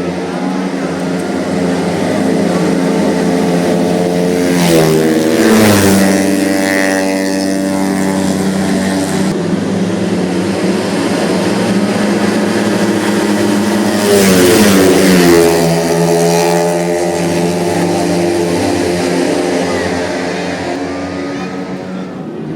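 Tuned 131cc automatic racing scooters running at high revs, a steady engine drone throughout. Twice, about five and fifteen seconds in, a bike gets louder and its pitch drops sharply as it passes.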